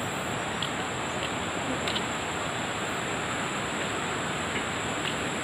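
Steady rush of a swollen river flowing over rocks, an even noise with no breaks, with a thin steady high-pitched whine above it.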